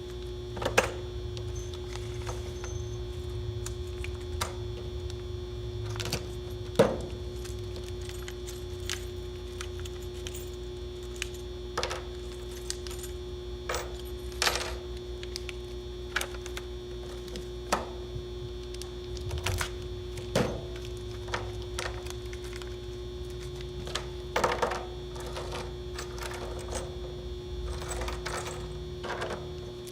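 Scattered metallic clinks and taps of hand tools, bolts and steel brackets being fitted together, a few louder knocks among them, over a steady electrical-sounding hum.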